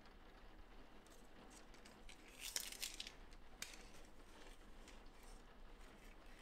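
Faint rustling and crinkling of a screen-printed fabric label handled and stretched by hand, with a short louder rustle about two and a half seconds in and a few light clicks.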